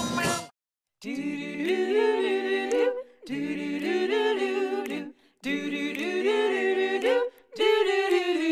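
A small group of voices singing a cappella in close harmony, doo-wop style: held, gliding chords in short phrases of about two seconds, with brief breaks between them. Backing music cuts off about half a second in, just before the singing starts.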